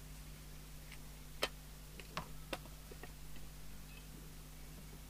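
A few sharp clicks and taps from a small CB radio's metal case and loose bottom cover as the set is handled, the loudest about a second and a half in and two more just after two seconds, over a steady low hum.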